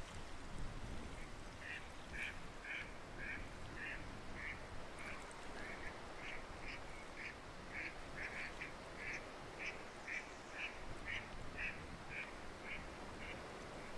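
Ducks calling: a steady series of short quacks, about two a second, starting a second or so in and stopping near the end, over a steady background hiss.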